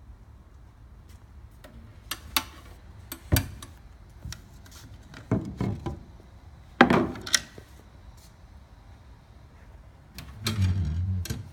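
Wooden drawers and doors of a lacquered wooden sideboard being handled: a series of separate knocks and short scrapes, then a longer, lower sliding sound near the end.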